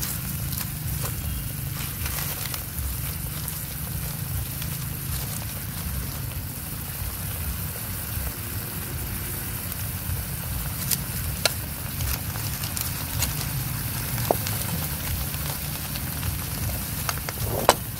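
Kho quẹt sauce of fish sauce, sugar and oil sizzling and bubbling in a wok over an open wood fire, with scattered sharp crackles and pops from the burning sticks and leaves over a steady low rumble.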